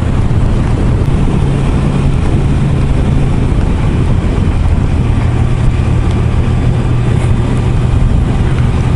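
Kawasaki Ninja sport bike's inline-four engine running at steady road speed, heard from an onboard camera, with wind rushing over the microphone. The engine note shifts slightly in pitch a couple of times as the throttle changes.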